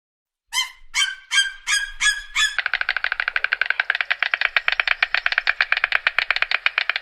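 Bird calls: six short calls about a third of a second apart, then from about two and a half seconds in a fast, even series of pulses, more than ten a second.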